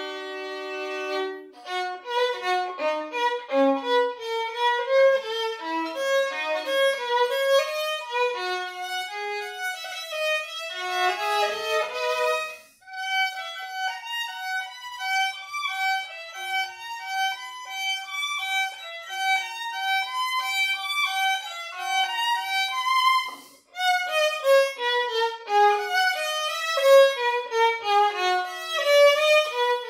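Solo violin played with a bow: a quick-moving melody of running notes, opening on a held two-note chord, with brief breaks about 13 and 23 seconds in.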